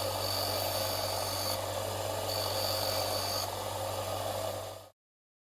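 Electric circular saw running steadily, with a high whine that comes in twice. It cuts off suddenly near the end.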